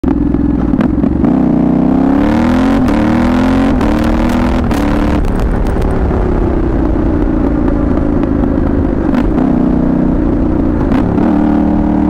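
2022 Yamaha Ténéré 700's 689 cc CP2 parallel-twin engine through an aftermarket Dominator GP1 exhaust, accelerating: the revs climb and drop back at three quick upshifts in the first few seconds, then the engine holds a steady cruise.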